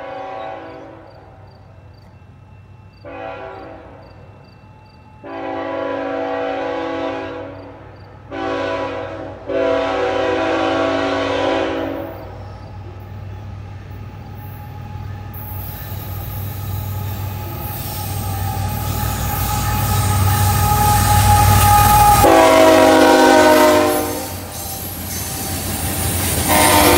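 Diesel freight locomotive horn sounding a series of blasts, short and long, as the train approaches; then the locomotive's engine rumble builds as it nears, another horn blast sounds as it passes, and the freight cars roll by with steel wheel squeal on the curve.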